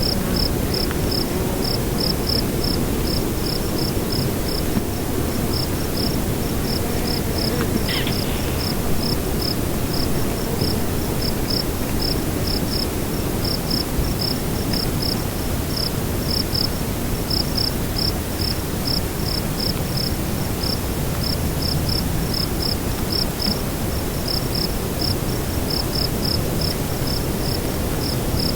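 Crickets chirping in an even, steady rhythm of a few high chirps a second, over a constant low rush of wind.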